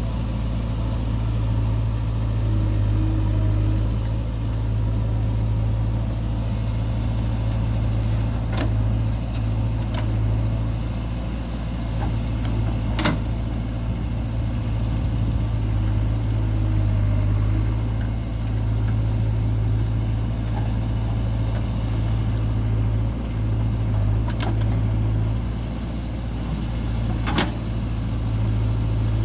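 A JCB 3DX backhoe loader's diesel engine running steadily under working load, with a few sharp clanks from the machine's bucket and arm, the loudest near the end.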